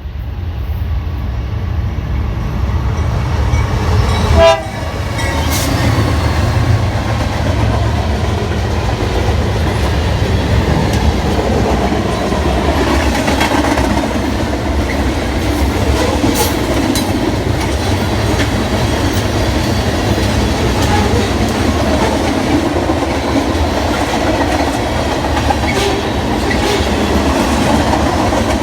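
A train passing close by: the locomotive's air horn sounds over the engine's heavy rumble and cuts off about four and a half seconds in, then the railcars roll past with their wheels clacking over the rail joints.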